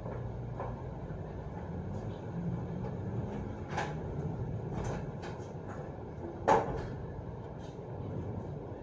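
Steady low background rumble with a few short, sharp knocks or clacks. Two are faint, about four and five seconds in, and one is loud and brief about six and a half seconds in.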